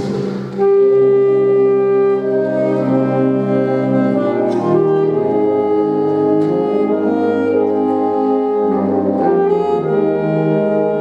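Instrumental music: sustained chords that shift every second or so, with a brief dip in level just after the start.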